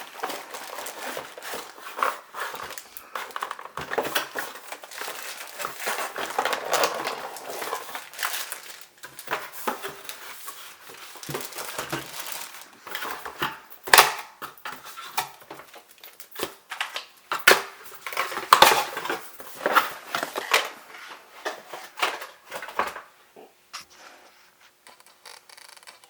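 Crinkling and rustling of plastic and cardboard packaging as it is handled and pulled open, with irregular crackles and a few louder knocks, dying down near the end.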